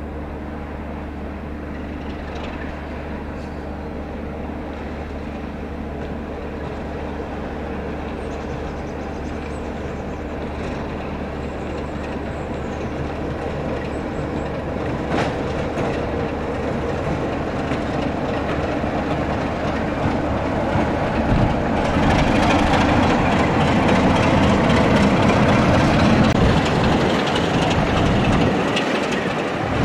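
Class 33 diesel-electric locomotive approaching and passing. Its engine grows steadily louder, with the rumble of the wheels on the rails loudest over the last several seconds before it eases off.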